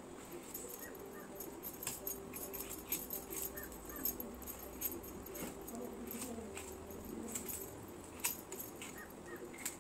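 Scraping and clicking of a vegetable's skin being peeled against an upright bonti blade, a run of short irregular ticks as strips come away.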